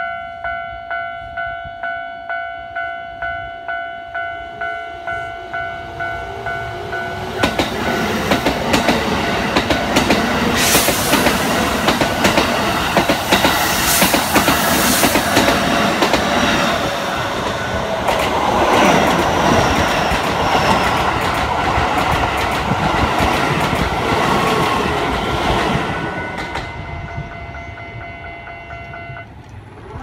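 Japanese level-crossing warning bell ringing about twice a second, then a Keikyu 600-series and a Keisei 3000-series electric train passing each other right beside the crossing. The passing brings wheels clattering over rail joints and a rising inverter whine from the Keikyu train's Toyo GTO-VVVF drive. The train noise builds, peaks, then fades, and the bell stops near the end.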